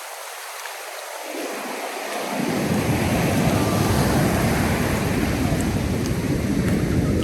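Ocean surf washing onto a sand beach, with wind on the microphone. The low rumble is missing for the first two seconds or so, then comes back and the sound grows louder.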